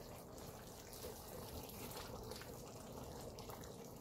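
Metal spoon stirring through a pot of chicken and potato curry, the thin gravy sloshing softly.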